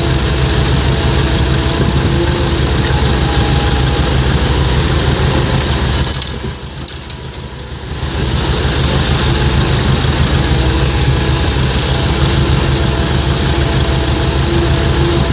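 Komatsu PC130-8 hydraulic excavator's diesel engine running steadily, dropping in level for about two seconds midway before picking up again.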